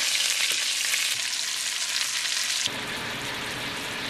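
Chicken thigh and garlic cloves sizzling in fat in a frying pan, a dense, bright crackle. About two-thirds of the way through it cuts to a quieter, lower sizzle of the browned thigh in its pan sauce.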